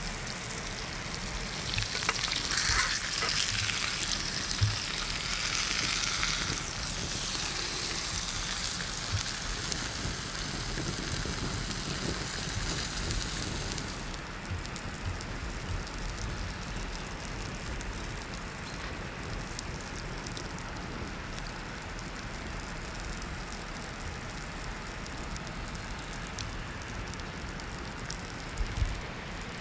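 Hot cheese-topped cured meat sizzling as it is laid on the bun, over the steady crackle of a campfire. The sizzle is strongest for the first half and drops away about halfway through, leaving the fire's crackle and a few soft knocks.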